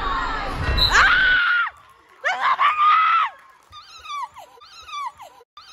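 High-pitched screaming: a long shriek over gym noise that cuts off suddenly, a second long scream, then a run of about five short cries that each fall in pitch.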